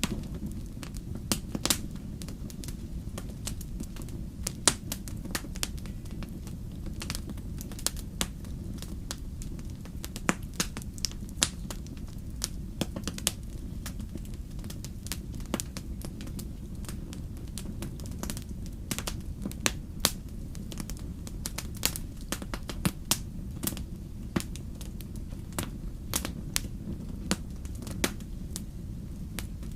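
Fire in a fireplace crackling, with irregular sharp pops, sometimes several close together, over a steady low rumble.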